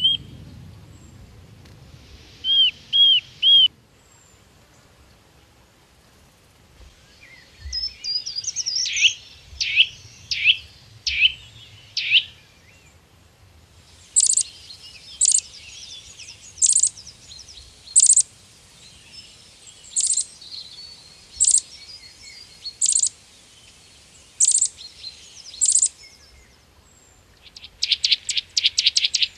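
Birds singing and calling in a series of separate phrases: three quick arching whistles, then a run of downward-sweeping notes, then sharp high notes about once every second and a half, and near the end a fast trill.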